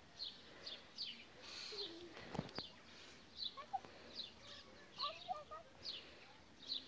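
A small bird chirping over and over, a short, high, falling note about every three-quarters of a second.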